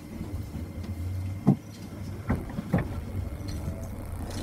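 Electric train pulling away from a station: a low, steady rumble from the running gear, with three sharp clanks from the wheels on the track, the first about a second and a half in and two more close together near the three-second mark.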